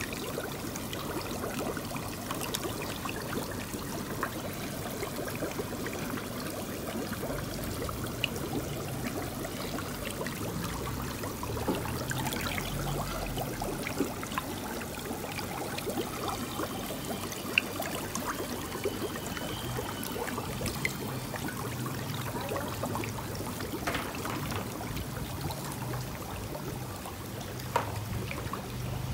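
Water trickling and splashing steadily, with scattered small clicks and a low hum underneath.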